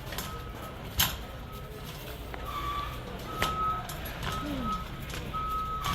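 Electronic backup-alarm style beeper sounding a repeated high beep in short pulses, growing louder after about two seconds, with a sharp knock about a second in.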